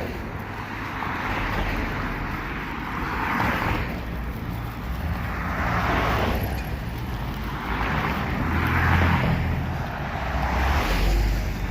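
Road traffic: cars passing one after another, their tyre and engine noise swelling and fading about every two to three seconds over a steady low rumble.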